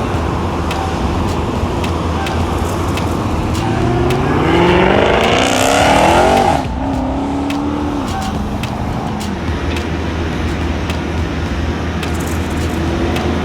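Supercharged V8 of a Dodge Charger Hellcat with a mid-muffler delete accelerating hard past, its pitch climbing for about three seconds and growing louder before it cuts off abruptly in the middle. A lower, falling engine note follows and fades as the car moves away, over a steady low engine rumble.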